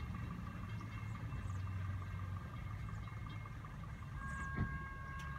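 Low, steady rumble of a distant engine, with faint steady high tones that grow louder about four seconds in and one short click near the end.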